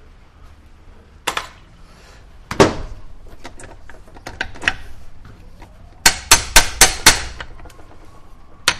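Hammer knocking on rusted steel parts of a manual transmission: two single blows, then a quick run of about six taps, to free a part that rust is holding in place.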